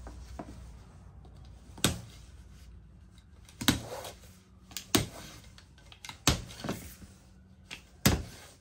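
A series of sharp snaps, about five loud ones spaced a second or so apart with a few fainter ones between, as a Protech TR3-MC1 knife blade cuts through plastic zip ties of different sizes, each tie parting with a snap.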